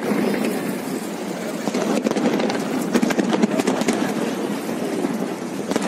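Steady rumble of a motor boat under way with water and wind noise, mixed with people's voices and a few short sharp cracks.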